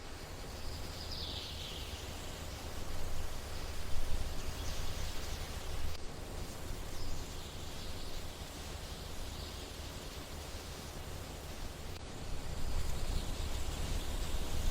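Outdoor ambience: a steady low rumble, typical of wind on the microphone, under a faint rustling noise, with a few faint high calls in the background.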